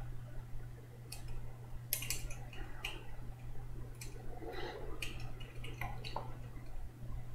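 Irregular clicking of a computer keyboard being typed on, in short uneven runs, over a steady low electrical hum.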